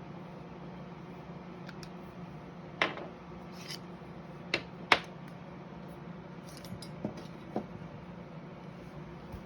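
Small hard parts clicking and clinking as they are handled, about five sharp clicks, the loudest about halfway through, over a steady low hum.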